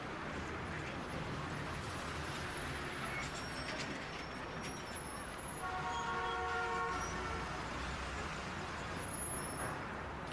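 Steady background noise of a busy public waiting area, with a horn sounding once for about two seconds near the middle.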